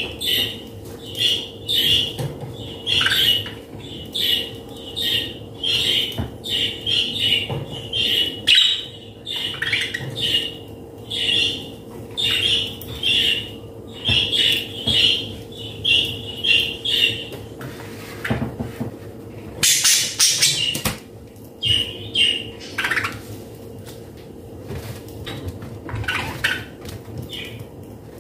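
A small bird chirping in quick repeated short calls, about two a second, thinning out in the second half, over a faint steady hum. A short burst of noise about twenty seconds in.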